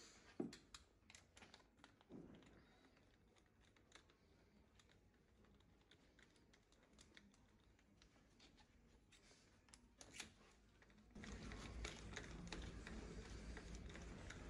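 Near silence with faint, scattered clicks and light metal taps from hand tools being handled at a diesel engine's cylinder head. A low steady hum comes in about eleven seconds in.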